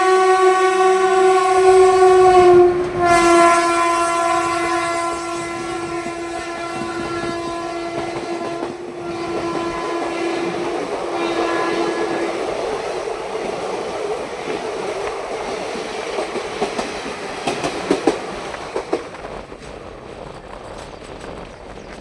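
Passenger train sounding a long, loud horn as it passes at speed. The horn's pitch drops slightly a few seconds in and the horn fades out about halfway through. It gives way to the rumble and clickety-clack of the coaches on the rails, with a few sharp clicks near the end as the sound dies away.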